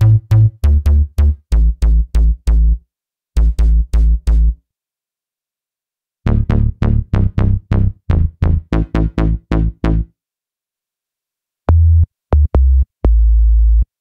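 ReFX Nexus 4 software synthesizer bass presets played dry, one after another: quick riffs of short, repeated synth-bass notes in phrases with brief pauses between them. Near the end come a few longer, deeper bass notes.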